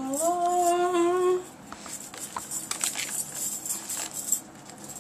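A woman's voice sings out a long, drawn-out "Voila!", rising in pitch and then held for about a second and a half. After it come faint scattered clicks and rustles of hands handling the laptop.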